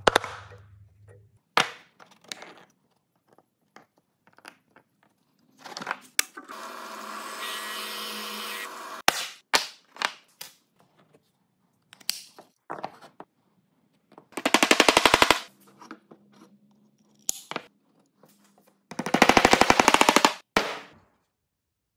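Workshop sounds of wood being worked: scattered single knocks and clicks of wood, a small motor running steadily for about three seconds, and two runs of very rapid knocks, the second as a mallet strikes the pieces of a wooden letter together.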